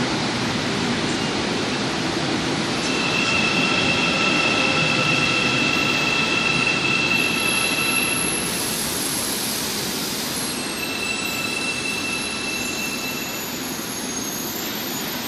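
A Busan Metro Line 3 train moving along the platform behind the screen doors: a steady rumble of wheels on rail, with a high steady whine over it about three seconds in that breaks off and comes back. The sound grows louder in the middle and fades toward the end.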